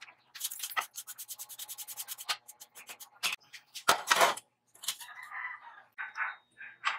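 Steel drilling chips being swept off a steel plate in quick, even scraping strokes, then a metal machine vise set down and shifted on the steel with a few loud clunks about four seconds in.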